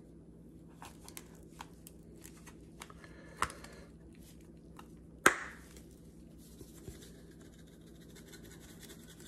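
Plastic spice shaker of onion powder being opened: small clicks and scratches at the cap, then a sharp snap of the flip-top lid about five seconds in. This is followed by a faint, fine rattle of powder being shaken out.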